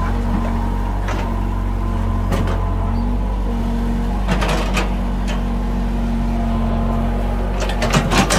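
Caterpillar compact hydraulic excavator's diesel engine running steadily. A few clanks and scrapes come from the bucket working the soil, with a quick cluster of them near the end.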